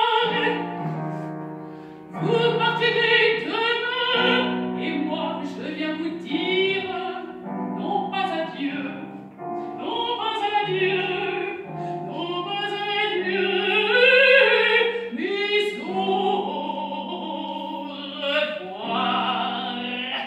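A female opera singer singing in full operatic voice with a wide vibrato, phrase after phrase, over piano accompaniment.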